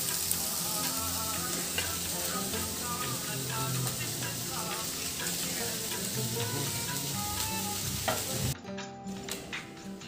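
Scrambled egg and leafy greens frying in a nonstick pan, with a steady sizzle and a wooden spatula stirring through it. The sizzle cuts off suddenly about eight and a half seconds in, leaving quieter background music.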